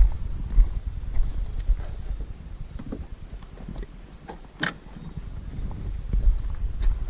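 Footsteps walking on a hard surface, with scattered light knocks and one sharp click a little past halfway.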